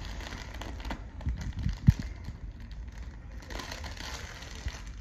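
A young beaver tugging and mouthing a plush toy on the floor: soft rustling and small clicks, with a few low thumps, the loudest about two seconds in.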